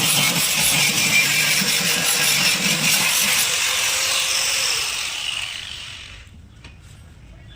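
Hand-held power tool running loud and steady, then winding down and stopping about six seconds in.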